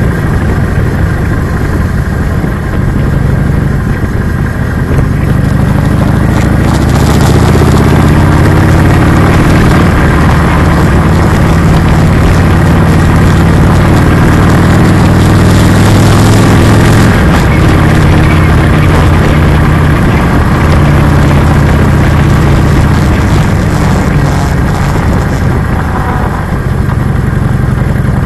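Harley-Davidson Low Rider S V-twin engine running on the road: its pitch climbs as it pulls away about five seconds in and holds with wind rushing past, then it eases off a little past halfway and settles into a lower, steady run.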